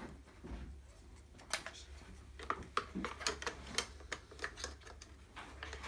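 Irregular light clicks and taps of trolley parts being handled, more of them in the second half, over a faint low steady hum.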